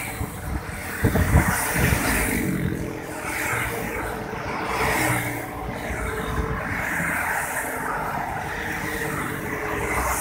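Engine and road noise inside a moving vehicle, a continuous rumble with a few bumps about a second in.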